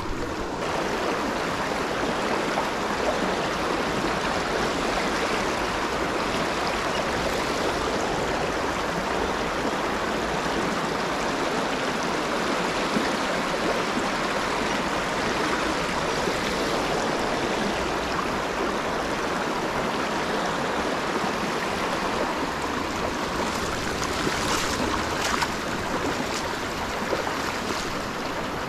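A small rocky stream rushing over stones in shallow riffles: a steady, even rush of water.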